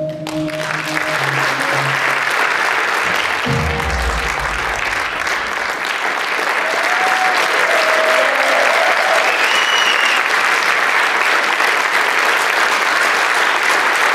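Theatre audience applauding steadily, with the music ending as the clapping starts. A deep falling boom sounds about three and a half seconds in.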